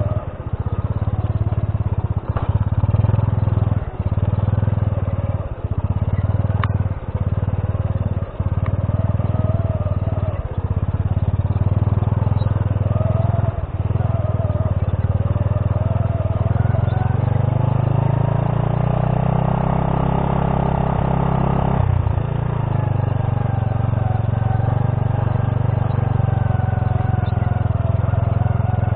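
Honda C70's small single-cylinder four-stroke engine running under way on a rough stone track, with several brief dips in the first half. Past the middle its pitch climbs steadily for several seconds as it is held on the throttle, then drops suddenly.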